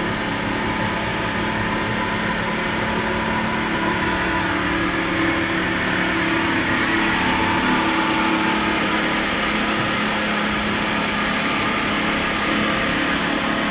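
Twin Mercury outboard motors on a rigid inflatable boat running at speed, a steady drone under the rush of wind and water past the hull.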